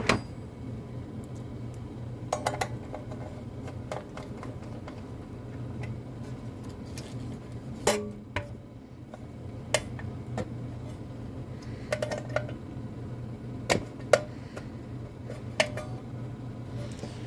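Nut driver and screws clicking and tapping against the variable transformer's sheet-metal case as the screws are put back in: about ten scattered sharp clicks, over a steady low hum.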